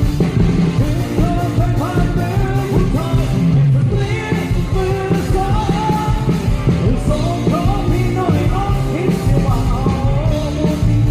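Live Thai ramwong dance band playing, with a singer's gliding melody over a steady drum beat.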